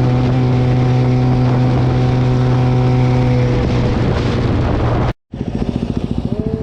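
Cafe racer motorcycle engine running at steady revs, then easing off about three and a half seconds in. After a sudden cut to silence near the end, the engine is heard idling with rapid, even firing pulses.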